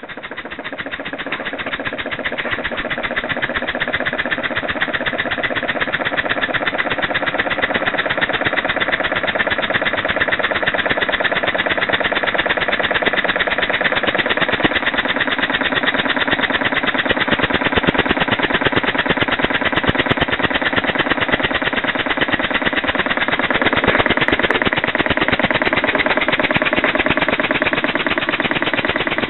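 Homemade single-cylinder model steam engine running on compressed air, its exhaust puffs coming so fast they merge into an even, rattling buzz. It builds up over the first few seconds, then runs steadily.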